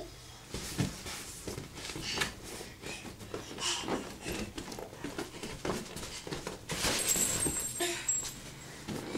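Toddler moving about on the floor of an inflatable vinyl bounce house: irregular soft thumps and the rubbing and squeaking of the vinyl under her hands and feet.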